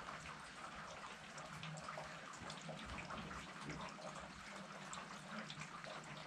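Faint steady rain falling, with many small drops ticking and dripping onto nearby surfaces.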